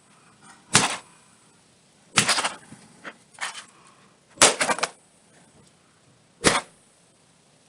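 Sledgehammer blows smashing an iPad: a run of about six sharp cracking impacts, unevenly spaced, some in quick pairs.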